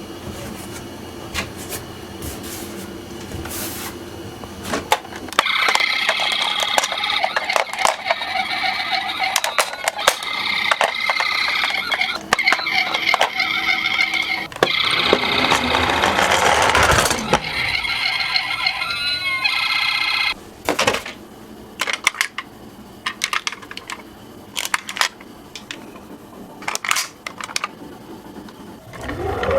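Toy ambulance's electronic siren sounding, wavering and wailing, from about five seconds in until around twenty seconds, then a rising siren sweep near the end. Between, the toy minicars click and clatter on the slope.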